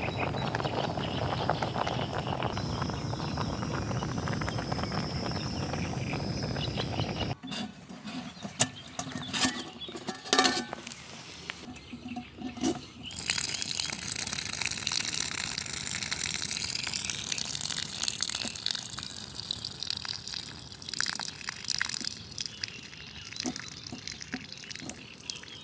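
Pasta water boiling hard in a camping pot on a gas canister stove, a steady dense hiss and bubbling. After a cut about seven seconds in come a few sharp clanks of the pot and lid, then the cooking water is poured off through the lid in a steady splashing stream.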